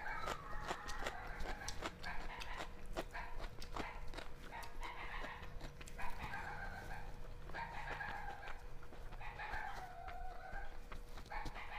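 Close-miked eating of rice and curry by hand: wet chewing and lip-smacking clicks in quick succession. Behind them run a faint steady hum and drawn-out wavering calls that come and go every second or two.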